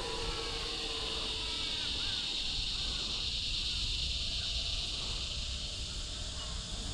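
Wind rumbling on the microphone, under a steady high-pitched hiss and a string of short, repeated bird chirps.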